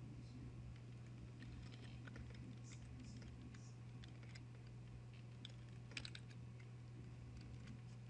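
Faint computer keyboard typing: scattered key clicks over a steady low hum.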